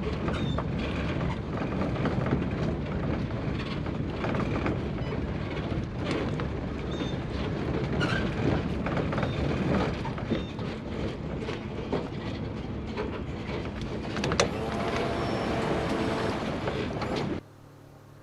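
Steady rumbling noise of a boat under way on the river, the motor's drone mixed with wind and water noise and scattered knocks. It cuts off suddenly near the end.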